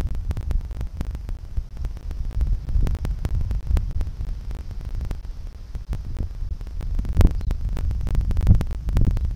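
Wind buffeting the camera microphone: a low rumble that swells and drops in uneven gusts.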